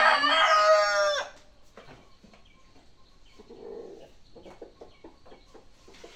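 Rooster crowing: a loud, drawn-out crow that ends with a falling tail a little over a second in. After it come only faint knocks and scrapes.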